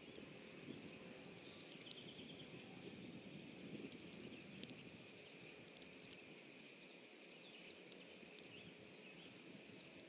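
Faint outdoor ambience with many scattered soft ticks and rustles and a low background rumble that fades about halfway through.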